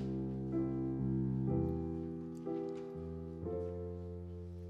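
Instrumental accompaniment between sung lines: held keyboard chords, a new chord about once a second, growing slightly softer toward the end.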